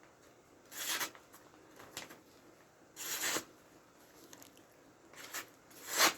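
Swiss Army knife blade making five quick slicing strokes in a sharpness test, each a short swish, the last one the loudest.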